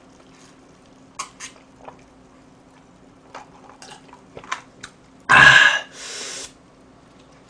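A man gulping a fizzy drink, a few small swallowing clicks, then one loud burp about five seconds in, followed by a short breathy exhale.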